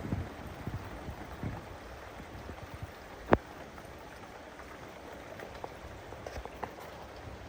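Steady rain falling, with scattered drops tapping and one sharper drip striking a hard surface about a third of the way in.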